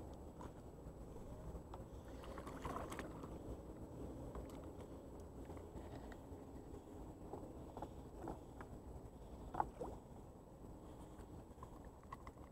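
Faint lapping of bay water with a low rumble, scattered small clicks and one sharper knock about ten seconds in.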